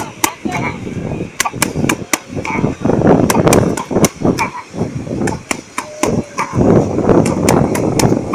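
Punches landing on boxing focus mitts: sharp slapping smacks in quick irregular combinations. Loud gusts of wind on the microphone run in twice, about three seconds in and again near the end.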